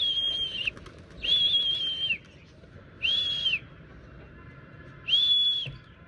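A person whistling four times, with gaps of about a second or so. Each whistle is a steady high note that slides up at the start and drops at the end: a pigeon keeper's whistle driving his pigeons up to fly.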